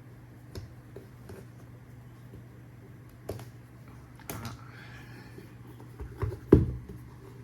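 Cardboard retail box being handled as its seal is broken and it is worked open. Scattered light clicks and taps, a short scraping rasp a little after four seconds, and a loud thump about six and a half seconds in, over a steady low hum.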